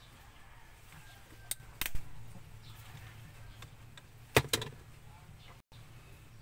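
Sharp clicks and knocks from a replacement handbrake handle being pushed and worked onto a Honda Civic FD's parking brake lever: a few clicks around two seconds in and a louder pair a little past four seconds.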